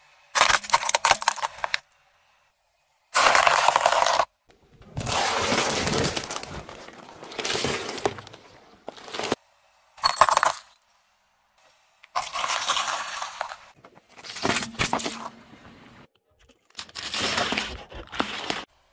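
A car tyre rolling over and crushing small brittle objects, heard in a run of separate short takes: crackling, crunching and glass breaking, including small glass vials of coloured sand snapping and raw eggs cracking. Each take starts and stops abruptly, with short silences between, and the sharpest crack comes about halfway through.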